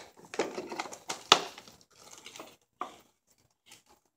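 Cardboard retail box with a clear plastic window being handled and opened: irregular rustling and crinkling of the packaging, with one sharp, louder click about a second in.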